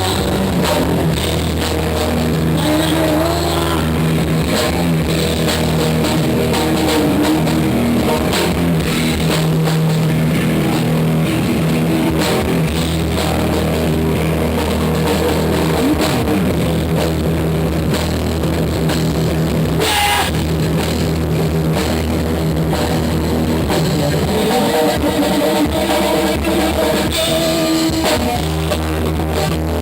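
A band playing rock-style music, with a drum kit keeping the beat under guitar. There is one sharp crash about two-thirds of the way through.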